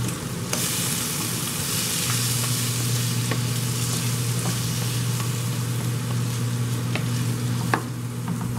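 Shrimp sizzling in a hot frying pan while a wooden spoon stirs them, with a few light clicks of the spoon against the pan.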